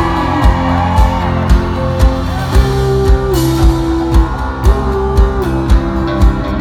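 Live country band playing an instrumental passage: strummed acoustic guitar and electric guitar lines over drums, with a steady kick drum at about two beats a second.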